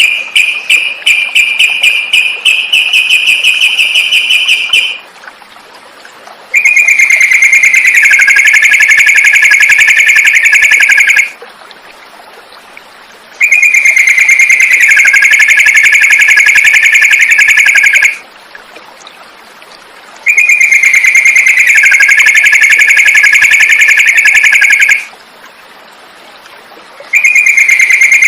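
Sooty-headed bulbul (trucukan) song: a fast, high rattling trill held for about five seconds, then the same trill phrase, dipping slightly in pitch partway through, repeated three times with short pauses between. The identical repeats are typical of a looped song recording played to train caged birds.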